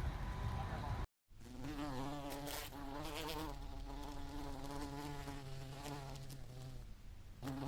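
A flying insect buzzing close by: a steady low hum with a slight waver in pitch. It starts after a brief cut to silence about a second in.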